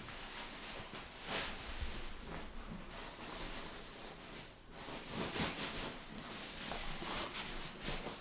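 Faint rustling and soft knocks of belongings being handled and packed into a bag, in short bursts with pauses between them.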